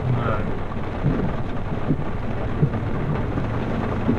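Steady low rumble inside a truck crawling in four-wheel-drive low gear through a rainstorm, with rain on the body and a few short knocks from the rough, flooded trail.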